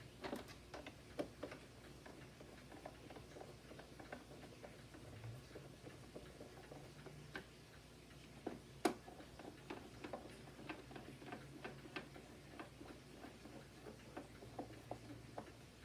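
Faint, scattered small clicks and taps of hard plastic parts and a hand tool being handled, with a louder knock about nine seconds in.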